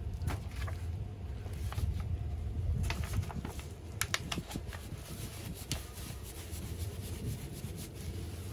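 A paper crepe wrapper and cardboard sleeve crinkling and rustling in plastic-gloved hands as a crepe is wrapped and slid into its sleeve, in short scattered crackles over a steady low rumble.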